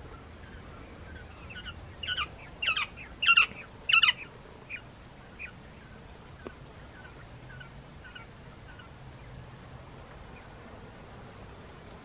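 Japanese (Coturnix) quail chirping: a quick run of loud short calls about two to four seconds in, then fainter, sparser chirps trailing off.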